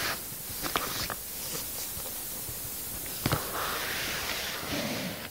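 A shoe box being handled: a few light taps and clicks, a sharper knock a little over three seconds in, then a short rustle.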